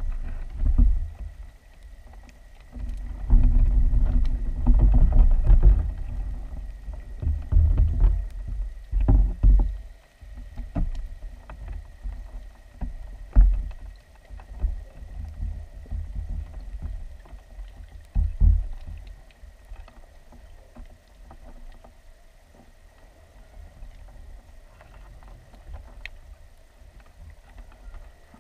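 Muffled low rumbling and knocking picked up by a GoPro in its underwater housing: water surging around the camera and the housing shifting and bumping as it moves. It comes in swells, loudest in the first ten seconds, with a couple of sharp knocks later, and a faint steady high tone throughout.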